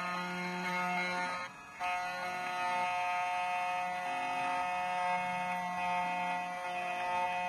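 2M2 TANK2 PRO CNC key cutting machine running as it cuts a metal HU66 key, a steady whine of several tones with a short break about a second and a half in.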